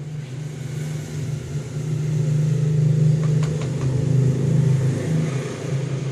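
A motor engine runs with a steady low hum that grows louder toward the middle and eases near the end, with a few light clicks about three and a half seconds in.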